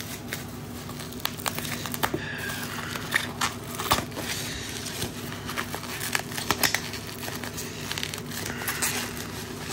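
Packaging being handled and unwrapped: steady crinkling and rustling with many scattered sharp crackles and clicks.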